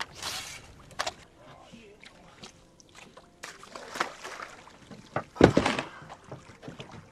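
Sea water sloshing and splashing around a wooden rowing boat as it is pushed through the shallows, in several separate surges. The loudest and heaviest comes about five and a half seconds in.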